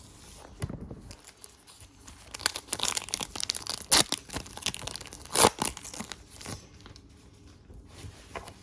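A sealed NBA Hoops 2022-23 hobby pack of basketball cards is torn open and its wrapper crinkled for a few seconds, with two sharp, louder rips in the middle.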